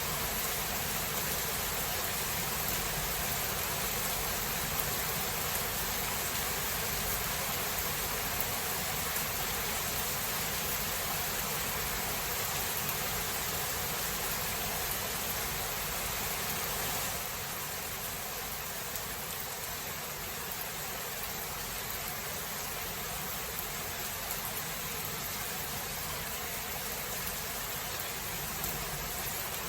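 Steady rain falling, an even hiss with no distinct drops or thunder claps, easing slightly in level about seventeen seconds in.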